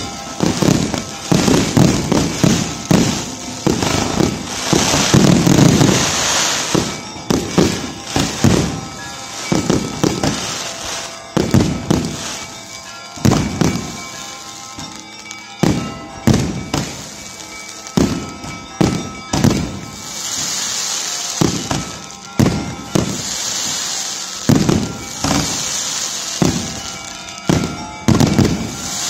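Aerial fireworks display: a dense volley of shell bursts for the first several seconds, then bangs spaced a second or so apart, with hissing, crackling stretches in the second half.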